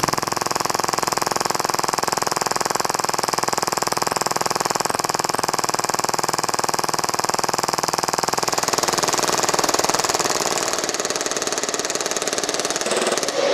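Action Army AAP-01 gas blowback airsoft pistol firing on full auto, fed from a high-capacity magazine and running on HPA through a regulator and hose. It makes a continuous, very rapid, even rattle of blowback cycles that starts abruptly and stops just at the end.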